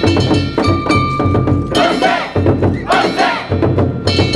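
Festival float music: regular taiko drum beats with struck metal percussion, one ringing tone held for about a second near the start. Shouted calls from the float's bearers come in past the middle as they work the boat float.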